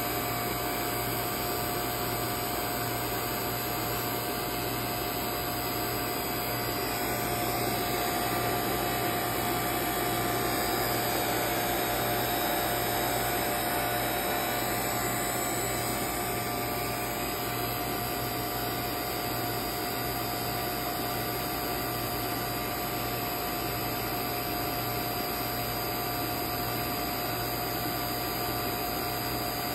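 A 7 CFM refrigeration vacuum pump running steadily, a constant drone with a held mid-pitched whine, evacuating a refrigerator's sealed system after a nitrogen pressure test; the system is early in its pull-down, at around 2000 to 1860 microns.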